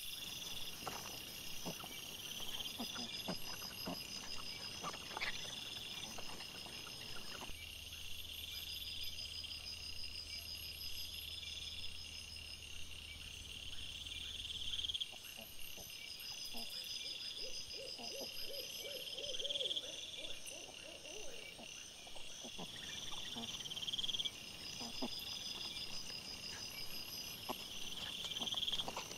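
Night insects chirping in short repeating trills about every two seconds. Under them come scattered light clicks and rustles, and a short wavering call about two-thirds of the way in.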